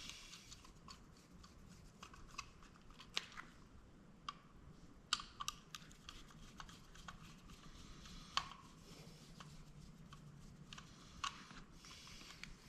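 Faint, irregular clicks and ticks of a small screwdriver working tiny screws and handling the camera's small parts.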